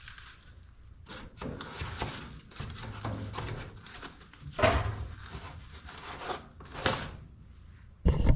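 Irregular knocks, scrapes and rubbing as gas furnace parts are handled during a tune-up, with two louder knocks about four and a half and seven seconds in.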